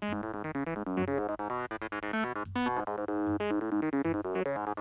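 Fast psytrance-style arpeggio from the Serum software synth: a rapid run of short, plucky notes changing pitch several times a second, with lower bass notes pulsing underneath. The patch is a saw wave and an acid wavetable through a resonant band-pass filter.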